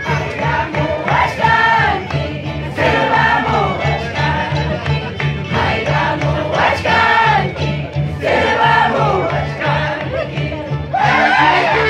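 Festive Andean music from a harp and violin band, with a group of voices singing along over a steady low beat and the crowd's voices mixed in.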